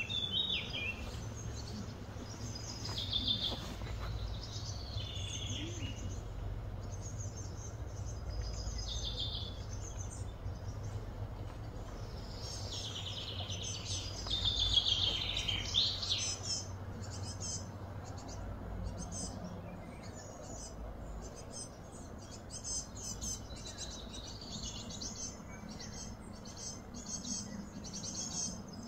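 Outdoor ambience of birds calling, with repeated high phrases that are loudest and fall in pitch about halfway through. Through the second half a rapid, high pulsed chirping runs on, over a steady low hum.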